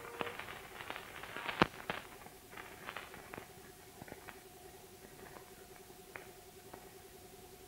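Faint, scattered clicks and pops over a low steady hum, the surface noise of an old film's worn optical soundtrack. The clicks are densest in the first couple of seconds, with the sharpest about one and a half seconds in.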